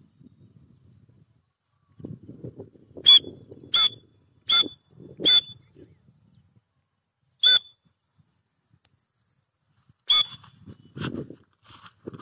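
Grey francolin (teetar) calling: a run of four short, sharp, whistled notes about three-quarters of a second apart, then single notes about two and then five seconds later, with faint rustling in the grass around them.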